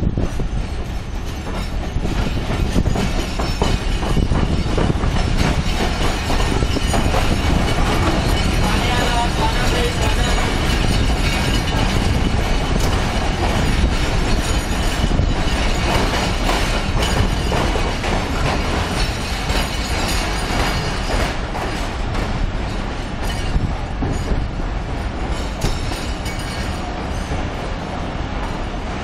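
Passenger train rolling slowly into a station, heard from an open coach door: a steady rumble and clatter of the wheels on the rails, with some wheel squeal.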